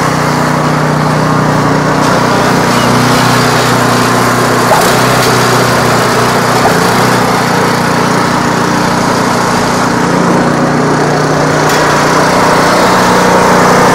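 Walk-behind snowblower's petrol engine running steadily and loudly, getting a little louder near the end.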